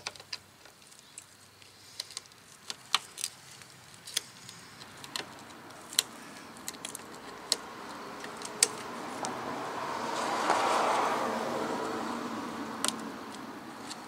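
Scattered sharp metallic clicks and clinks of pliers working a spring hose clamp on an intercooler hose. A broad rushing noise swells about halfway through, peaks around ten seconds in and fades, like a passing vehicle.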